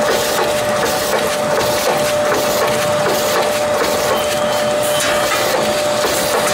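Acerpack SAB-1250V-T2 bubble bag making machine running: a steady, dense mechanical clatter of rapid clicks over a constant mid-pitched whine.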